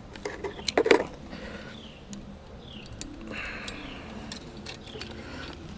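A few sharp metallic clicks about a second in as small locking bolts are handled and fitted at the hub of a bronze folding propeller, with birds chirping in the background.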